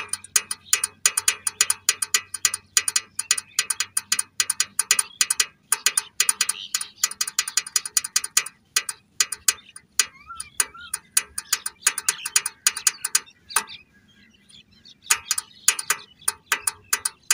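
Rapid ratchet-like mechanical clicking, several sharp clicks a second with a slight ring to each, pausing briefly about fourteen seconds in.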